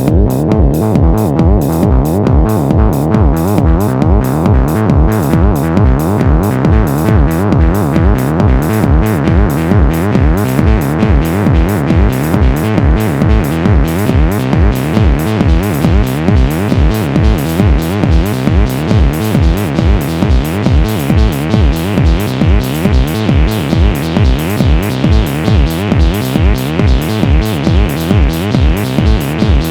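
Live techno from a drum machine and analogue synthesizer: a steady kick beat about twice a second under a dense, buzzing synth line. A filter opens over the first ten seconds or so, so the sound brightens and fills out in the highs.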